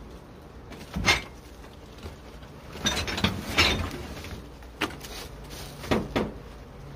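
Knocks and scrapes of wood as the top of an old wooden kitchen cabinet housing a honeybee colony is pried and lifted off: one sharp knock about a second in, a cluster of knocks and scraping around three to four seconds in, then a few more single knocks near the end.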